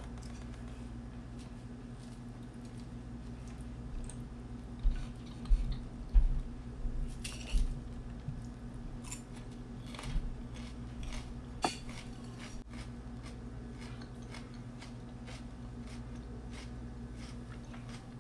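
A metal fork clicking against a plate and a mouthful of crunchy lettuce salad being chewed, with a cluster of dull knocks and sharp clicks in the middle, over a steady low hum.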